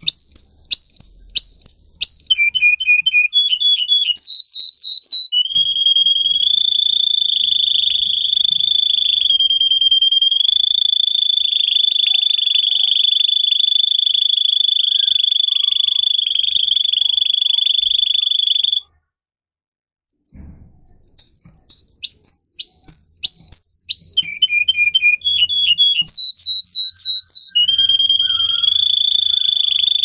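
Canary singing: quick repeated chirps and trills that jump to a new pitch every second or two, then one long, steady, high whistled note held for over ten seconds. After a brief silence it returns to quick repeated phrases and ends on another long held note.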